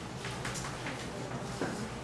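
Chalk tapping and scratching on a blackboard as characters are written: a series of short, sharp taps over a low steady room hum.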